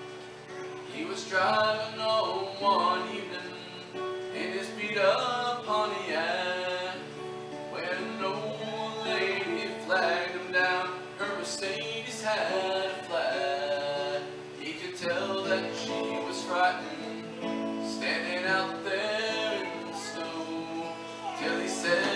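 A man singing to his own acoustic guitar; the guitar plays alone at first and the voice comes in about a second in.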